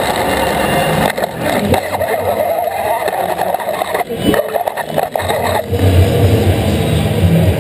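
FRC competition robot's motors running and its mechanism clunking a few times as it drives and lifts a ball, heard from a camera mounted on the robot, over steady arena crowd noise. Music comes in near the end.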